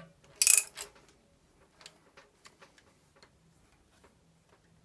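Ratchet and socket clicking on a rocker arm nut during hydraulic valve adjustment: a short, louder run of clicks about half a second in, then scattered faint metallic ticks.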